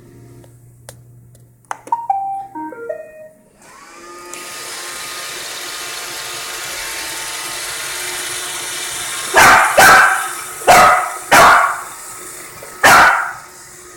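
A Roomba robot vacuum plays a short tune of stepped notes and then starts running with a steady whir. From about nine seconds in, a dog barks five times, loudly, over the running vacuum.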